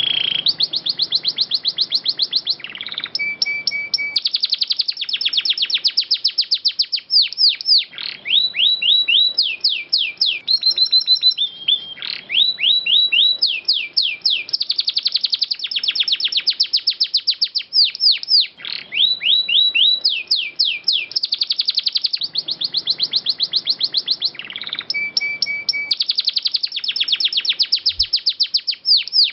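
Domestic canary singing a long unbroken song made of rolling trills: each phrase is a fast run of the same quickly repeated note, and one phrase follows the next with hardly a break.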